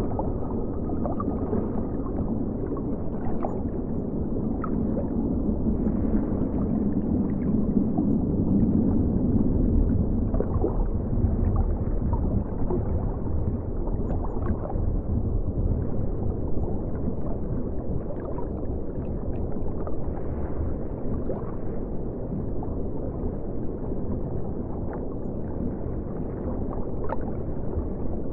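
River water flowing, heard muffled as if underwater: a steady low rush with scattered faint ticks and pops, swelling a little a few seconds in.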